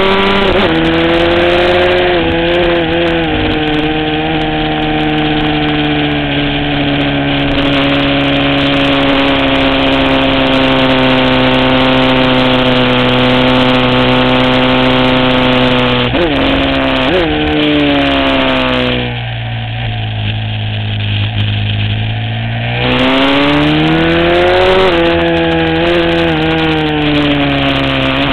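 Aprilia SXV supermoto's V-twin engine running hard on track, heard from onboard. The pitch drops sharply and recovers twice a little past halfway, then falls to a quieter, lower-pitched off-throttle stretch of a few seconds before the revs climb again.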